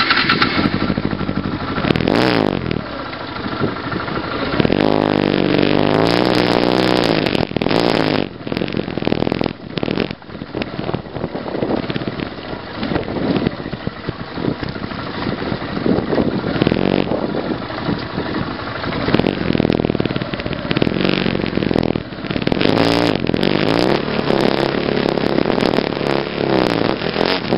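Motorcycle engine revving up and down again and again as the bike is ridden and worked along a steep rocky trail, with sharp clattering knocks now and then.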